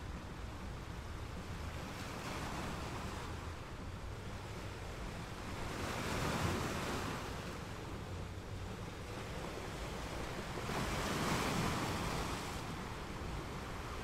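Ocean waves breaking and washing in, with two swells of surf over a steady rush.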